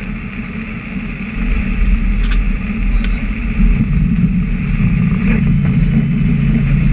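Airliner cabin noise during landing: a steady rumble of engines and rushing air that grows louder about a second and a half in and stays loud.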